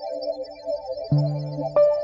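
Background music: a steady, repeating high-pitched figure, joined about a second in by a deep held note and then a higher one near the end.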